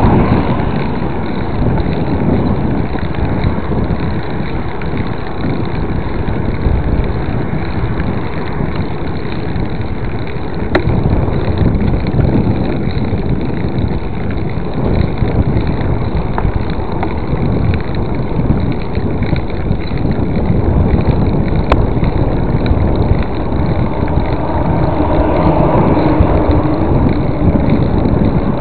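Wind rushing over the microphone of a camera carried on a moving mountain bike, a steady loud low rush. Two sharp clicks come through, about eleven seconds in and again about ten seconds later.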